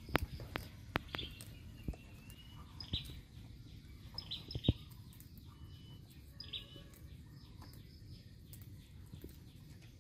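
Short bird chirps about every second or two, over a run of sharp clicks and snaps, densest in the first half, as greens are picked by hand.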